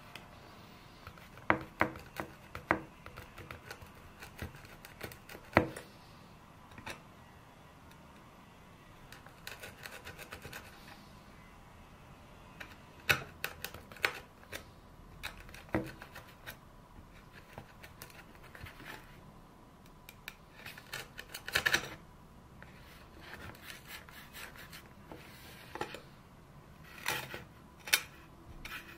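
A bench chisel chopping and paring a shallow hinge mortise into the edge of a birch board by hand: scattered sharp taps and short scraping shaves of wood, with quiet gaps between.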